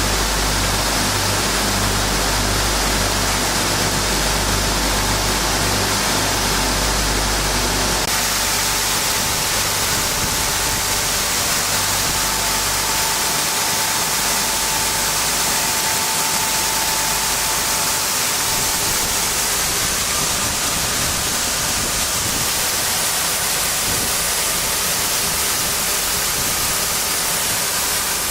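Sanding machine for wood board cores running with a loud, steady rushing noise. A low pulsing rumble underneath stops abruptly about eight seconds in.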